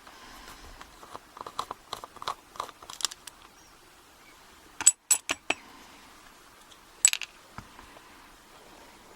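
Small metallic clicks and clinks of a padlock and small metal tools being handled, with a few sharp, bright clinks about five seconds in and another about seven seconds in.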